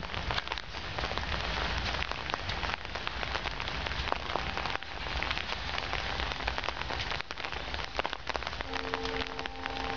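Steady rain, with many sharp drop clicks over a low rumble. A steady tone of several pitches joins near the end.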